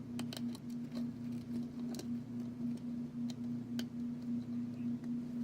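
Light scattered clicks and taps of small parts being handled on a smartphone, as a replacement screen's flex connector is fitted, over a steady electrical hum.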